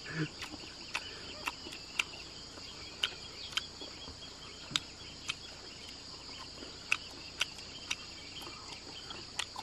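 Steady high-pitched insect chorus, with irregular sharp clicks close by, about one or two a second.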